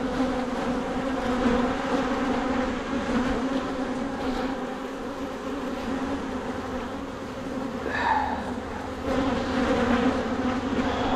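Honeybees buzzing in numbers around an open hive during a frame inspection: a steady, even hum.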